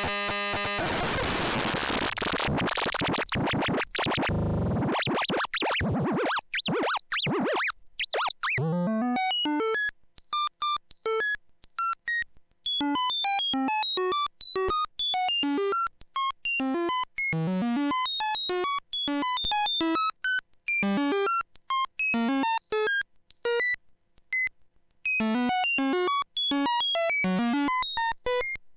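Dual 3340-based analog VCO synth module (CubuSynth Engine) producing a dense, noisy buzz with sweeping pitches for about eight seconds. It then switches to a fast run of short bleeps that jump widely in pitch, some of them with quick gliding swoops.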